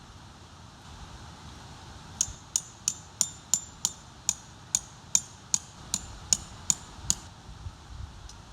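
A hammer driving a tent peg into the ground: about fourteen steady blows, roughly three a second, each with a bright ring, starting about two seconds in and stopping near the end.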